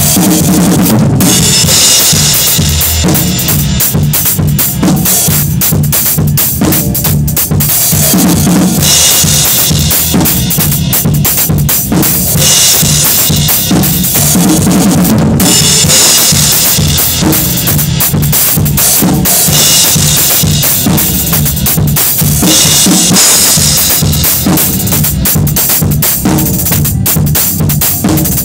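Drum kit played close up in a steady groove, with bass drum, snare and cymbals. The cymbal wash comes and goes in stretches of a few seconds.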